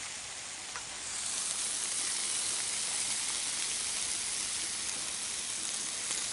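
Steady rain falling, joined about a second in by hot dogs, burgers and chicken sizzling on an electric grill, together making an even hiss.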